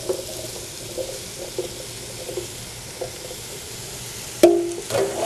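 Vegetables sizzling in a hot pot as drained chickpeas slide in from a stainless steel pan and are stirred with a wooden spoon. A sharp knock with a short ring comes near the end.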